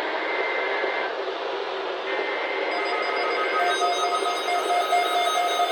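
Weather radio giving a steady hiss of static, joined about three seconds in by a pulsing electronic alarm beep.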